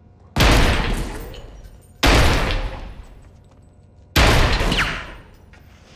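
Three loud bangs about two seconds apart, each trailing off in a long echoing rumble.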